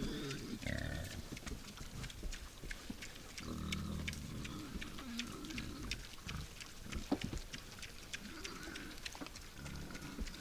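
Wild boars grunting low several times, with many short sharp clicks and crackles in between.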